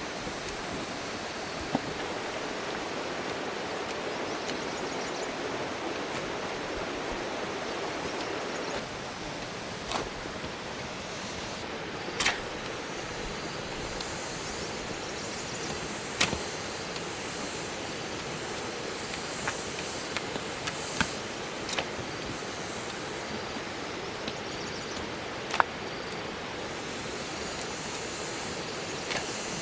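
Steady rushing outdoor noise with a few short, sharp knocks scattered through it.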